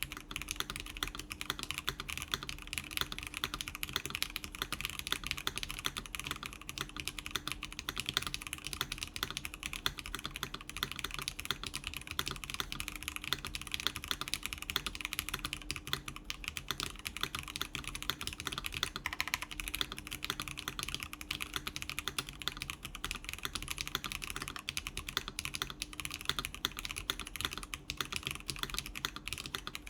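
Continuous fast typing on a mechanical keyboard with clicky NovelKeys TypePlus Classic Blue switches, factory-lubed, in a polycarbonate-plate case with silicone insert and case foam and GMK keycaps: a steady stream of sharp key clicks.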